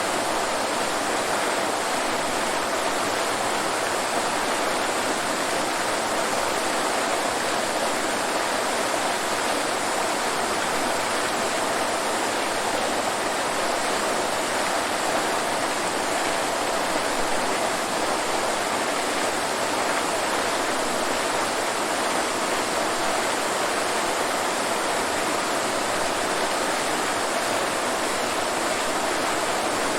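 Waterfall: water falling and rushing in a steady, unbroken roar with no changes.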